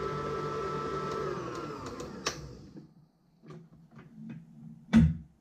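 Electric stand mixer's motor winding down after being switched off from whipping cream, its whine slowly falling in pitch and fading over about three seconds. A few light clicks follow, then one louder knock near the end.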